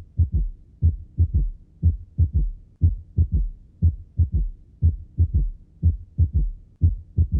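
Recorded heart sounds of a patient with a third heart sound, the S3 gallop ('dum ta-ta'). Each cycle, about once a second, has the first and second heart sounds followed closely by the third in early diastole. The third sound comes from the ventricular wall vibrating at the end of rapid ventricular filling.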